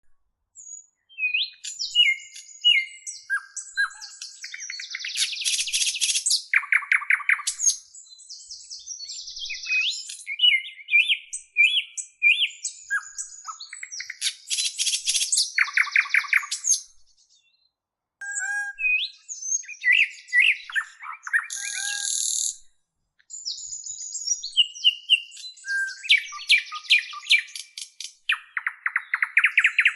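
Songbird singing a varied song of chirps, whistled notes and fast trills, in phrases broken by short pauses.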